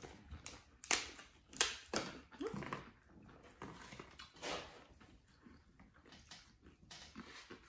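Crisp corn tostada shells snapping and crunching as they are broken and bitten, with chewing in between. There are several sharp crunches about a second, a second and a half and two seconds in, and another around four and a half seconds in.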